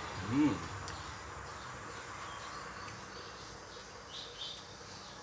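Faint bird chirps over a steady background hiss, with a brief voiced sound that rises and falls in pitch just after the start.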